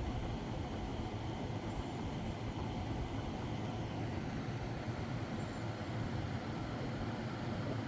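Electric fan and air conditioner running: a steady, even hum with no changes.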